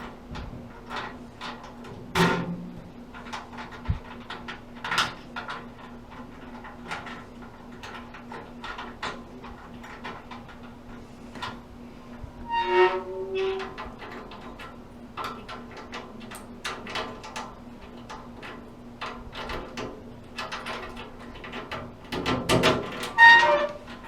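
Scattered metallic clicks, clinks and knocks of a replacement lock cylinder being handled and worked in a metal toolbox, with a short squeak of metal on metal about halfway through and another near the end, over a faint steady hum.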